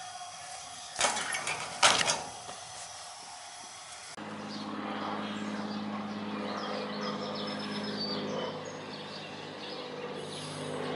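Two loud clattering knocks, then a vehicle engine idling steadily from about four seconds in.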